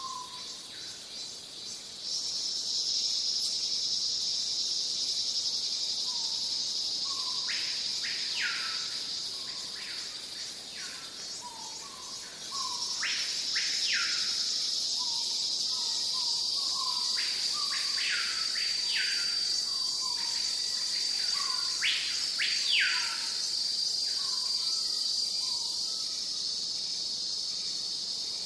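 Tropical rainforest ambience: a steady high-pitched insect drone that comes in a couple of seconds in and swells again near the middle. Over it, short low chirps repeat throughout, and from about a quarter of the way in birds give sharp rising whistled calls, mostly in pairs.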